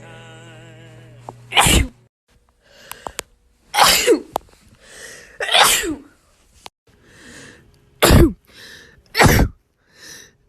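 A person sneezing about five times in a row, each sneeze a loud, sharp burst, some trailing off in a falling voiced 'choo', with fainter breaths in between.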